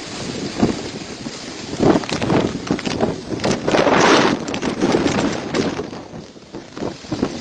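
Cyclone wind gusting across the phone microphone in irregular blasts, the strongest about four seconds in.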